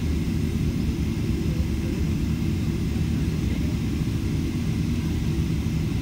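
Airliner cabin noise on the ground before takeoff: a steady low rumble from the engines and air system at idle, with a faint steady whine above it.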